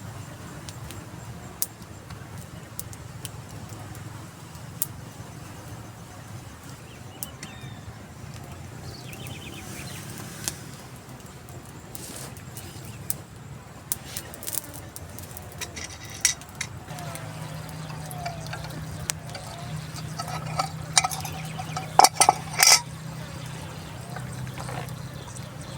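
Liquid being poured, with scattered small clicks and, near the end, a quick run of loud metal clinks like a pot or cup being knocked.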